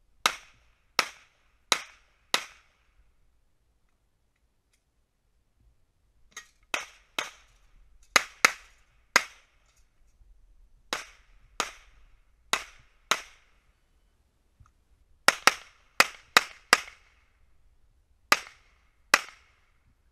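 Pistol shots fired in quick strings, about twenty sharp reports in groups of two to five with pauses of a second or more between groups.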